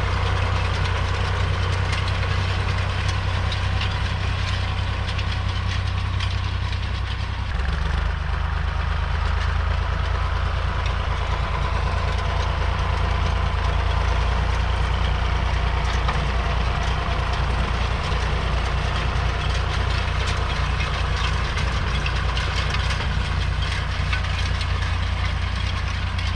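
Valmet 359D tractor's three-cylinder diesel engine running steadily under load while pulling a seed drill across a field. Its note shifts about seven seconds in.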